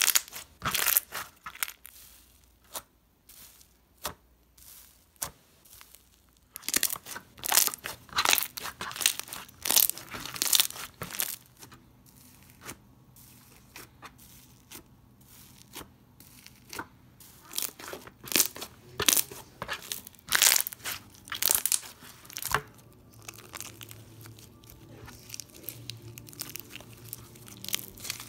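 Crunchy slime being squeezed by hand and pressed with a metal utensil, giving irregular crisp crackling and popping in quick clusters, with quieter stretches between.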